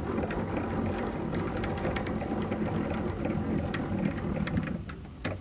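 Husky tool box's height-adjusting lift mechanism being cranked by hand, a steady mechanical whirring with light ticking that stops a little before the end.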